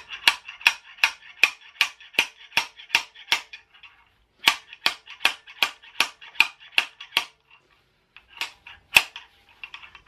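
Homemade slide hammer on a BMW N47 diesel fuel injector: the sliding weight is hammered against its stop in rapid metallic clanks, about three a second, in runs with short pauses, to work loose an injector stuck tight in the cylinder head.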